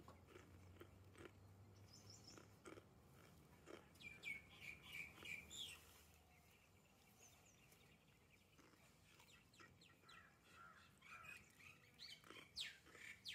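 Faint birds chirping in short repeated calls, one run about four seconds in and another near the end, over quiet outdoor background.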